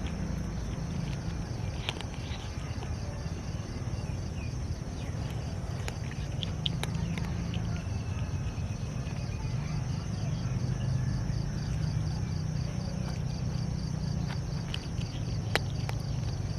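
Cats eating, with scattered sharp clicks of chewing over a steady low hum and a fast, pulsing high buzz.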